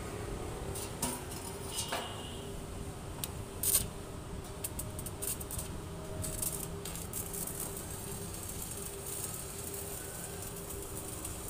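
Stick (arc) welding on a steel tube frame. A few sharp ticks in the first seconds as the electrode touches the steel. From about halfway there is a continuous frying crackle of the burning arc, over a steady hum.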